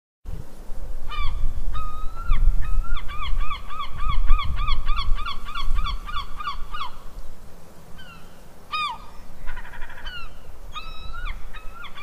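Gulls calling: a few single calls, then a fast run of repeated falling yelping calls at about four a second, then scattered calls near the end, over a low rumble.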